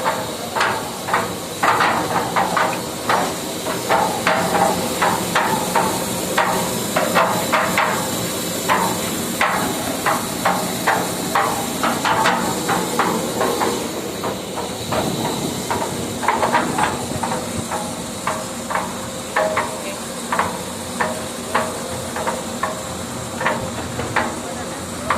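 Hydraulic concrete mixer running with a steady machine hum, under irregular sharp knocks and clanks, about one to two a second.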